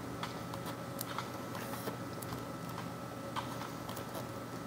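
Faint scattered ticks and light rustles of grip tape being wound by hand around a fishing rod handle, over a low steady hum.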